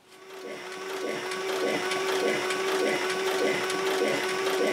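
Industrial cylinder-arm sewing machine starting up and stitching through suede and its synthetic-wool lining. A steady motor whine comes up over the first second, with the rhythmic beat of the needle on top.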